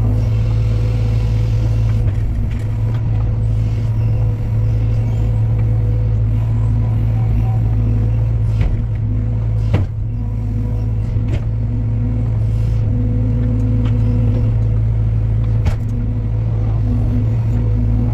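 Heavy machine's diesel engine running steadily at a constant speed, with a few sharp knocks or clanks about halfway through.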